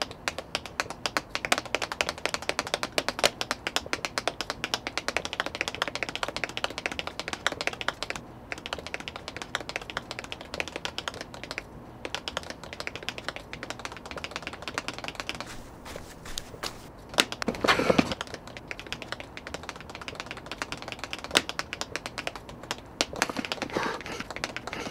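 Tap shoes clattering on pavement in fast, dense runs of taps, thinning a little at times, with one louder scuffing burst about 17 seconds in.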